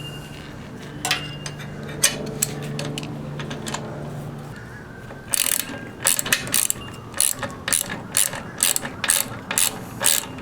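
Socket ratchet wrench clicking as a bolt is turned down, with a few scattered clicks and knocks at first, then from about halfway a regular run of clicks about two to three a second. It is snugging up a bolt that holds a rubber foot or leg onto a generator frame.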